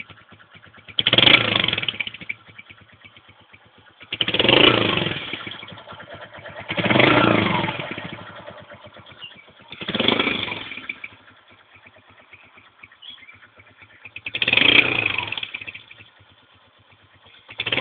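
Honda CG Titan single-cylinder four-stroke motorcycle engine fitted with an 'estralador' exhaust-popping kit, revved in short throttle blips about every three seconds, about five times. Each blip drops back to idle between them.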